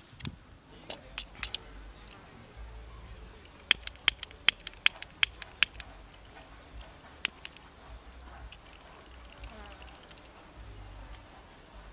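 Disposable lighter being flicked to light a hand-rolled cigarette: a quick run of about eight sharp clicks in under two seconds, then one more click a couple of seconds later.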